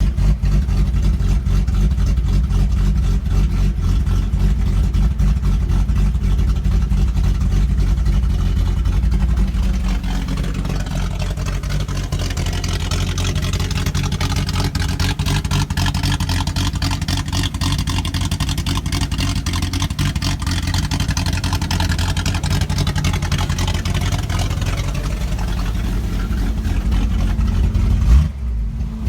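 Datsun L28 straight-six engine idling with a lumpy, loping idle like that of a big camshaft, caused by a vacuum leak inside the brake booster. A hiss grows louder through the middle, and there is a brief louder burst near the end.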